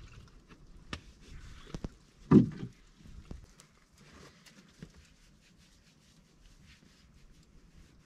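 A few sharp knocks in the first two seconds, then a short loud thud-like rustle about two and a half seconds in. After it, the small wood fire keeps up a faint crackling of scattered ticks.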